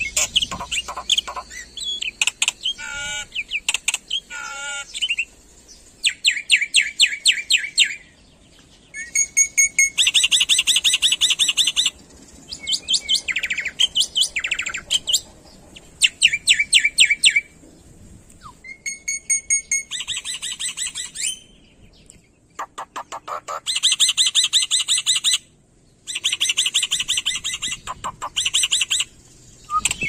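Black-winged starling (jalak putih) singing: phrases of rapid, evenly repeated chattering notes, each about two to three seconds long, separated by short pauses.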